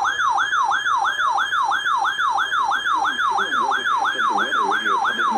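Electronic siren yelping: one tone sweeping down and back up about three times a second.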